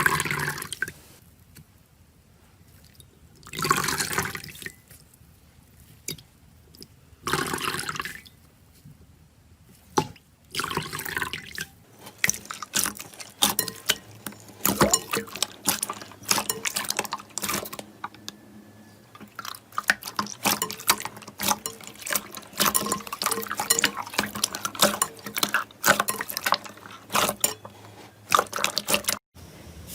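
Slime being squished by hand, making wet squelches: four separate squishes in the first dozen seconds, then a dense run of small wet pops and crackles that stops abruptly near the end.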